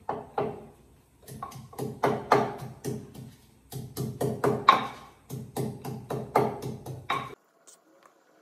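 Wooden pestle pounding garlic and ginger into a paste in a clay mortar: a quick, even run of strikes, about four or five a second, each with the same low ring, stopping shortly before the end.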